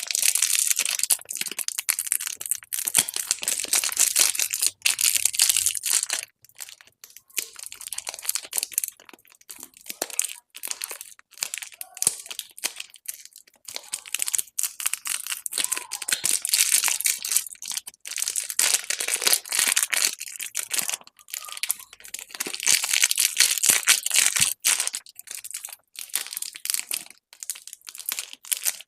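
Plastic candy wrappers crinkling and tearing open in close-up, with irregular crackles and sharp clicks that come in bursts and short pauses.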